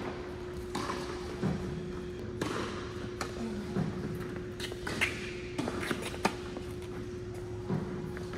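Tennis balls struck by rackets and bouncing on an indoor hard court: a few sharp knocks a second or more apart, echoing in the hall, over a steady hum.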